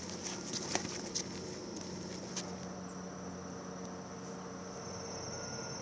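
Insects trilling in a steady, high, continuous buzz. A few short clicks or rustles come in the first couple of seconds.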